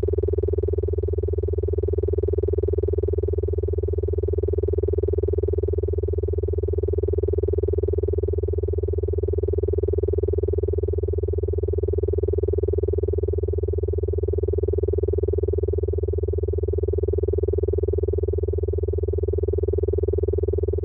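Old computer humming: a steady electrical drone, a low hum under a brighter mid-pitched tone, unchanging throughout.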